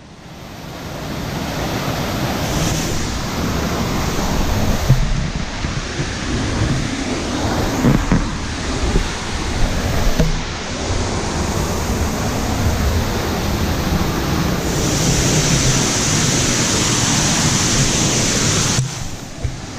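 Waterfall rushing: a steady noise of falling water that fades in over the first couple of seconds, turning hissier for a few seconds near the end.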